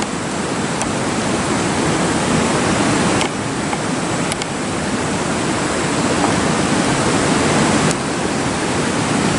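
Steady rushing of river water, with a few faint clicks.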